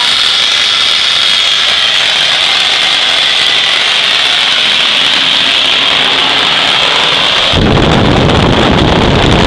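Homemade turbocharger-based turbojet running on propane/butane: a steady high whine over a loud rushing roar of combustion and exhaust. About seven and a half seconds in, a loud rough low rumble sets in and the high whine drops away.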